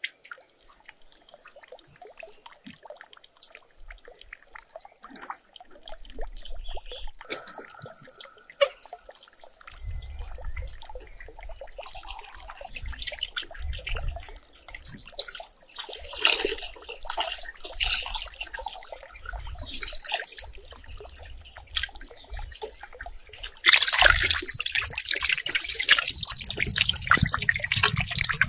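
Water trickling and dripping with scattered small splashes. Near the end it turns abruptly into a much louder, steady rush of water.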